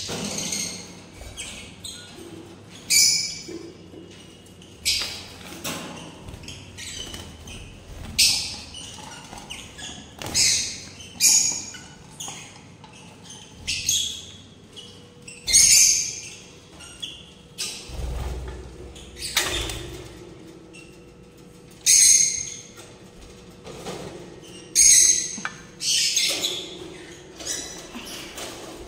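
Small caged parrots calling loudly: short, high-pitched screeches, one every second or two.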